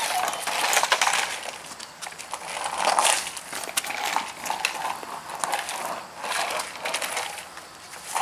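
Small skateboard's wheels rolling over rough, cracked asphalt in short gritty runs, swelling and fading several times, with a few sharp clacks of the board.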